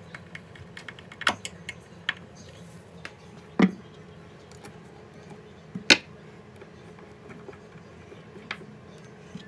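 Scattered small clicks and taps of a metal Soss hinge and hand tools being worked by hand, with three louder sharp knocks: one a little over a second in, one about three and a half seconds in, and one near six seconds.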